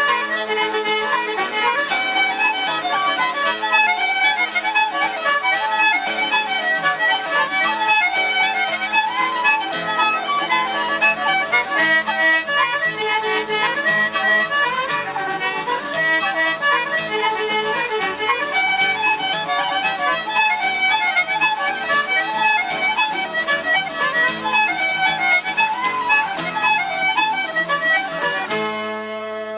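Irish traditional band playing a quick instrumental tune with fiddle to the fore over other melody and accompaniment instruments. The playing stops about a second before the end, leaving a final chord ringing out.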